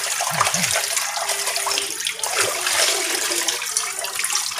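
Kitchen tap running onto a frying pan as it is scrubbed and rinsed by hand, with water splashing and small knocks of the pan in the sink.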